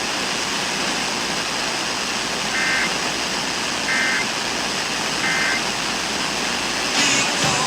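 Steady hiss of radio static, with three short two-tone data bursts about 1.3 seconds apart in the middle: the Emergency Alert System end-of-message signal sent after an alert.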